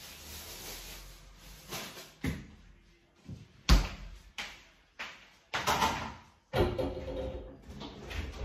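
A series of sharp knocks and bangs in a kitchen, a second or so apart, the loudest about three and a half seconds in, followed by a denser run of clatter near the end.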